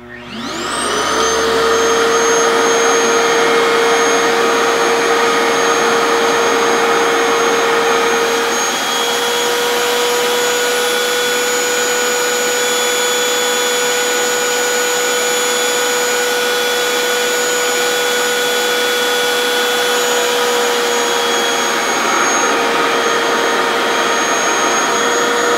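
RevAir reverse-air hair dryer's suction motor spinning up, then running steadily with a high whine over a hiss of rushing air, set to speed 2 with low heat, while it draws a section of hair into its wand to dry it.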